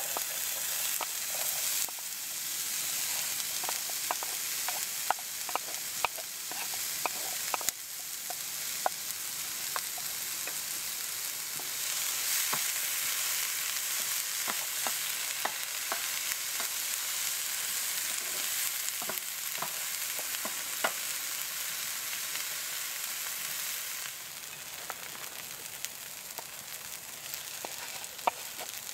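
Diced onion and red pepper sizzling in an oiled frying pan on a wood-burning stove, a steady hiss that starts as the vegetables hit the hot pan, with scattered pops and the knock of a wooden spoon stirring. The sizzle eases off a little about three-quarters of the way through.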